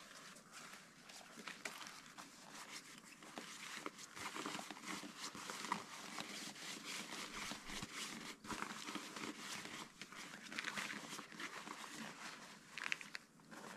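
Rustling and crinkling of a sleeping pad being rolled up tight and pressed down, with many small crackles and scrapes of the fabric.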